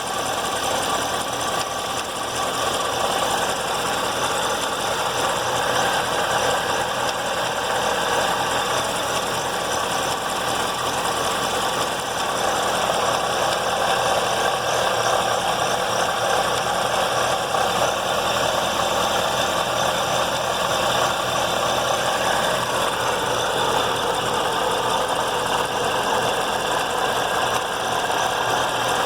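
Supercharged 6.2-litre LT4 V8 of a C7 Corvette Z06 running steadily, with an unusual tapping/knocking in it that sounds like a loose marble inside the motor.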